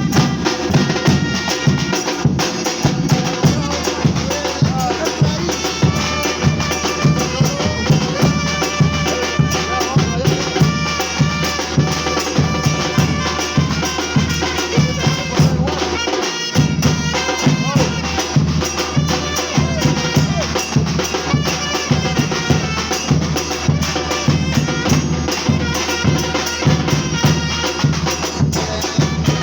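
Batucada drum group playing a medley: a steady beat of bass drums about twice a second under other drums, with sustained pitched tones running over the rhythm.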